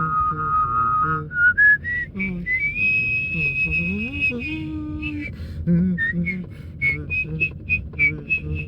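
A person whistling a Japanese folk-song chime melody from the Joetsu Shinkansen. It opens with a held note, climbs in steps to a long high note, then moves into quick short notes near the end, over a low steady rumble.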